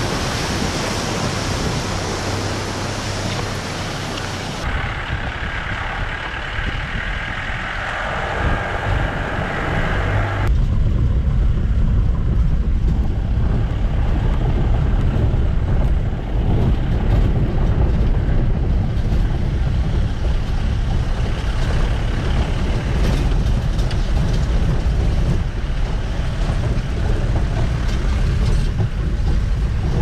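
A moving vehicle running with a steady deep rumble. The sound changes abruptly twice in the first ten seconds before the rumble settles in.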